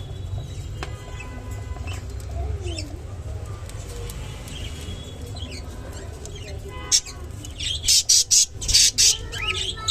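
Budgerigars chirping and warbling, with a run of loud, shrill calls in the last few seconds.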